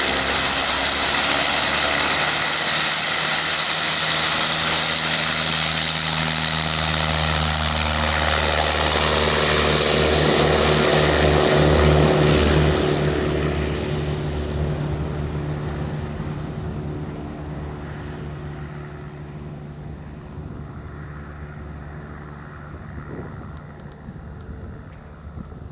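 Single-engine light propeller plane at full power on its takeoff run, engine and propeller growing louder to a peak about halfway through, then fading steadily as it climbs away.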